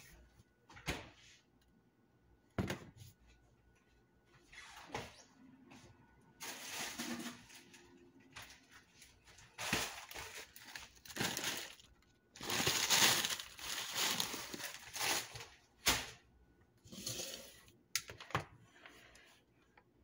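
Kitchen handling sounds while smoothie ingredients are prepared: a milk bottle and a plastic blender beaker are picked up and set down with scattered knocks, between stretches of noise. The longest and loudest stretch lasts about three seconds, past the middle.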